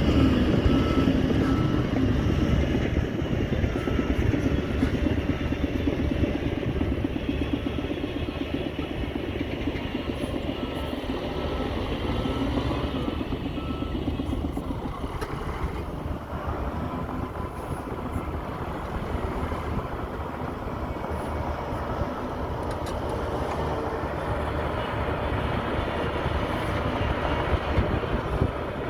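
Radio-controlled model dump trucks and a bulldozer running, a steady mechanical whir that eases a little midway and builds again near the end.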